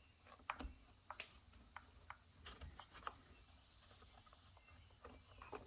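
Faint, scattered light clicks and taps of small parts being handled while a rubber hose is fitted back onto a nipple on a Stihl FS 56 RC string trimmer's carburetor assembly. About half a dozen clicks are spread over otherwise near silence.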